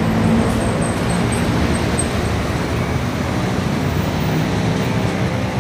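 Steady city road-traffic noise, mostly low in pitch, with no single vehicle standing out.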